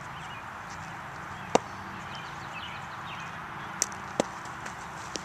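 A few sharp, single wooden knocks of a cricket bat being tapped on the practice pitch, about a second and a half in and twice close together near four seconds, over a steady outdoor hiss.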